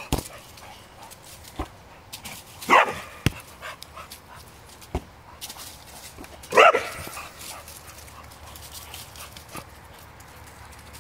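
Bulldog barking twice, a few seconds apart, with a few sharp knocks in between from the tetherball being struck.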